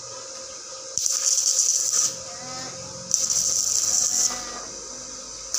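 Stick (arc) welding with an inverter welder, tack-welding a steel lock plate: two bursts of arc crackle and hiss, each about a second long, the first about a second in and the second about three seconds in.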